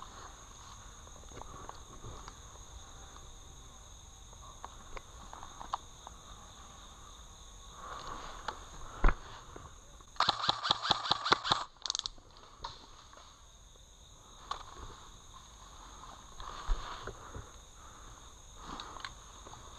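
Airsoft rifle firing a rapid burst of about a dozen shots a little past halfway, after a single sharp shot a second before. Insects buzz steadily throughout, and there are light footsteps in leaf litter.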